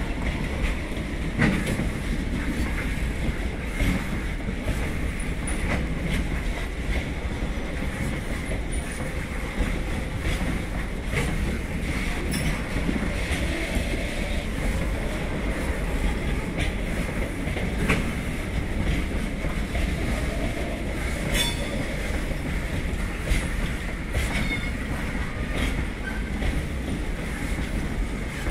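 Loaded covered box wagons of a freight train rolling past: a steady rumble of wheels on rail, with irregular clicks and knocks over rail joints and a high wheel squeal held throughout.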